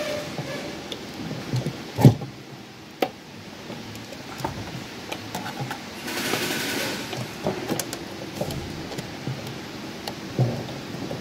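Scattered clicks and knocks of hand tools and parts during work on a car's fuel pump assembly, with one sharp knock about two seconds in and a brief hiss a little past the middle.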